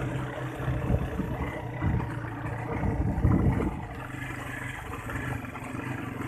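ATV engine running as the quad bike is ridden, a steady low hum under uneven rumble, easing off and quieter from about four seconds in.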